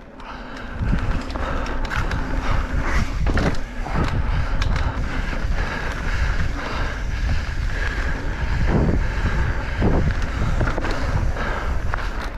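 Mountain bike rolling fast over a concrete channel wall: tyres rumbling on the concrete and the bike knocking and rattling over bumps, with heavy wind buffeting on the microphone that builds about a second in.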